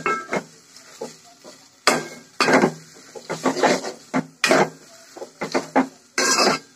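A metal spoon scraping and knocking against a metal cooking pot as noodles are stirred, in a string of irregular strokes with a longer scrape near the end.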